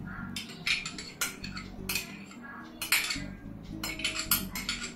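A steel spoon clinking and scraping against a bowl while stirring ghee, in a string of irregular clinks that crowd together near the end.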